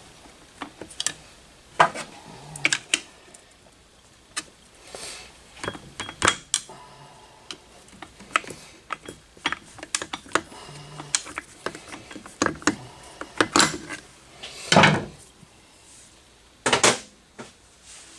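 Metal hand tools and bolts clicking and clinking against the engine casing as bolts are worked out, in irregular scattered taps, with a few louder knocks in the last few seconds.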